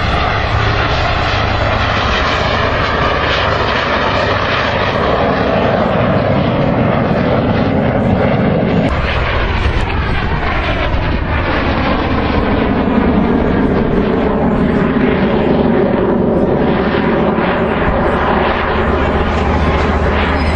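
Fixed-wing display aircraft flying past, engines loud and steady throughout, with the pitch sweeping down as one passes about ten seconds in.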